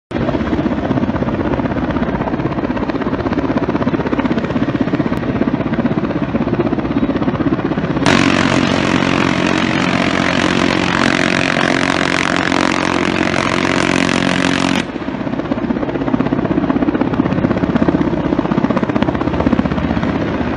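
Steady rotor and engine noise of a UH-60M Black Hawk helicopter. From about 8 s to about 15 s a louder, brighter continuous buzz with an even low drone cuts in and then stops abruptly, taken for the helicopter's M134 minigun firing a long burst.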